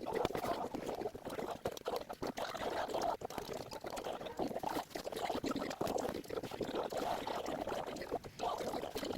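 Cardboard jigsaw puzzle pieces rattling and clicking against each other as they are stirred and handled, a dense patter of small clicks that runs on without a break.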